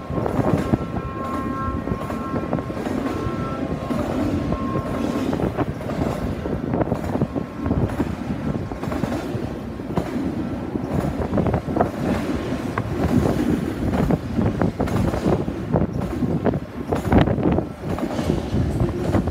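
Double-stack intermodal container cars rolling past: a steady rumble of steel wheels on rail with irregular clicks and knocks from the trucks. A thin steady whine sounds over it for the first five seconds or so.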